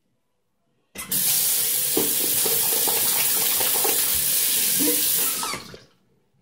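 Bathroom sink tap turned on and running in a steady stream for about five seconds, then shut off.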